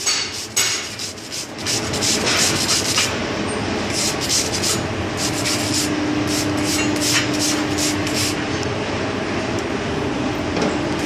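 Wire brush scrubbing a freshly welded steel plate in quick strokes, about three a second, cleaning the weld down to bright metal. The strokes stop about eight seconds in, leaving a steady background noise.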